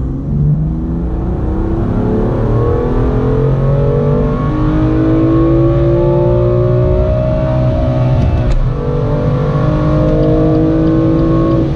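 BMW M2 Competition's 3.0-litre twin-turbo inline-six accelerating hard in third gear, its pitch rising steadily toward the redline. About eight and a half seconds in, the M DCT dual-clutch gearbox makes a quick upshift into fourth: the pitch drops, then climbs again.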